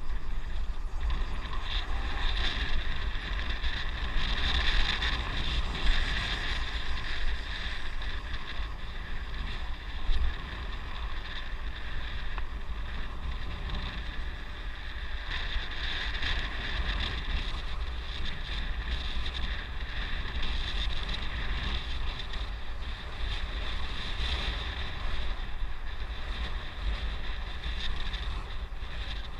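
Wind rushing over the microphone of a moving vehicle: a steady low rumble, with a high hiss that swells and fades every few seconds.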